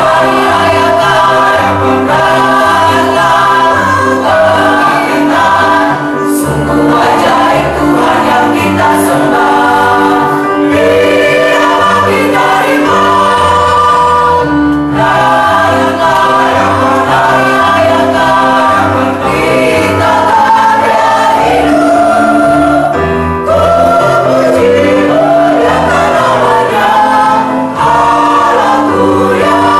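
Mixed church choir of men and women singing an Indonesian Easter hymn in harmony, over a sustained accompaniment with a bass line that moves from note to note.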